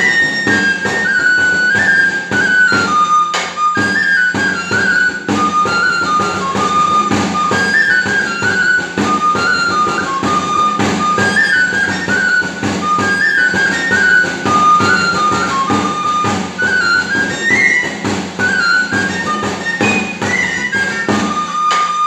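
Salamanca three-hole pipe (gaita charra) playing a lively charrada dance tune over steady beats of the tamboril drum, the piper's own accompaniment. The tune ends on a long held note near the end.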